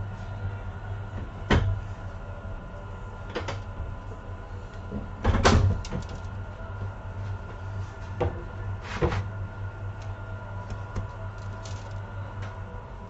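Several short knocks of a plastic dough plate being handled and tipped over a tray on a wooden workbench, the loudest about five seconds in, over a steady low hum.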